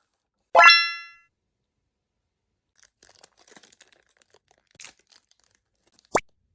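A bright ding with a quick upward swoop about half a second in, ringing out for about half a second. Faint crinkling and light tapping of small plastic pieces follow, then a short pop near the end.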